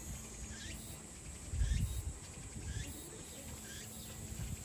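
Thin chirps, each a quick upward sweep in pitch, repeated roughly once a second by a small animal, with a brief low rumble a little under two seconds in.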